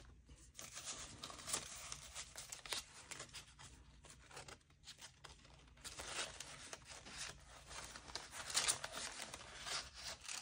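Faint rustling and crinkling of paper banknotes being handled and slid into a cash envelope in a budget binder.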